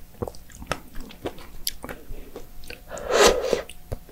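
Someone eating fresh strawberries with whipped cream: soft, wet chewing clicks and mouth smacks, with one louder noisy sound lasting about half a second about three seconds in.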